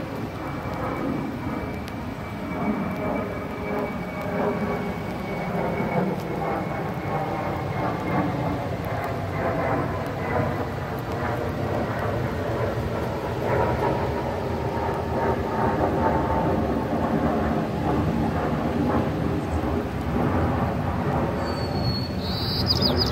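Jet airliner passing overhead: a steady rumble with engine whine that falls slowly in pitch as it goes by.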